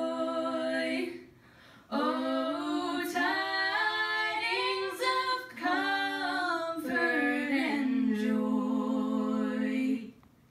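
Two women's voices singing a wordless harmony, with a short break about a second in, then a long held final chord that stops about ten seconds in.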